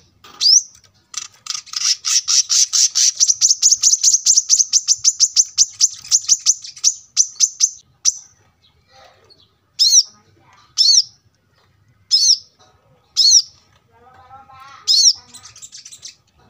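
Male brown-throated sunbird singing: a rapid trill of sharp high notes for about six seconds, then a run of single loud chirps about a second apart.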